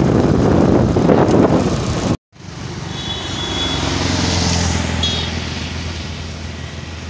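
Wind buffeting the microphone over road noise from a moving vehicle. After a brief cut about two seconds in, a steady low road-vehicle engine hum swells and then fades.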